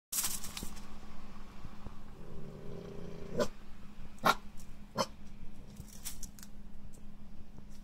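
Siberian husky puppy growling briefly while it plays at a stiff shoe brush. A few sharp clicks and fainter ticks follow.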